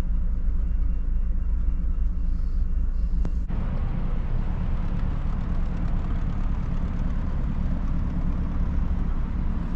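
Steady low mechanical rumble with a constant low hum, its tone shifting abruptly about three and a half seconds in.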